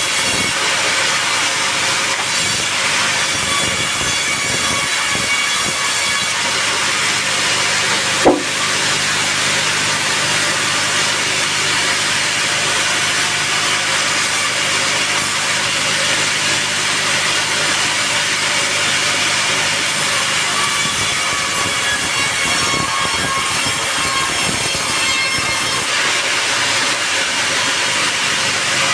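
Sawmill saw cutting a teak log: a loud, steady hiss over the even hum of its motor, with one sharp knock about eight seconds in.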